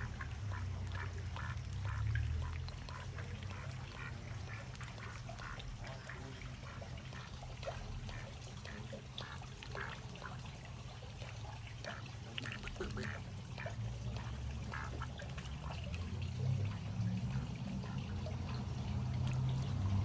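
Ducks calling in many short, rapid calls over a steady sound of running water.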